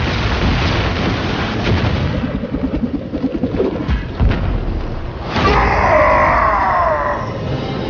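Film battle sound effects: a loud boom hits at once and runs on as a heavy rumble, with several sharp impacts. About five seconds in, a sweeping music score comes in over it.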